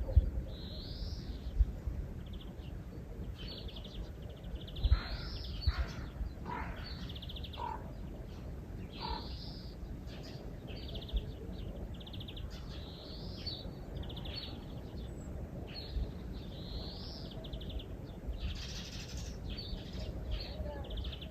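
Small birds chirping and trilling over and over, high-pitched, some calls sliding downward, over a steady low rumble. A few short low thumps come in the first few seconds.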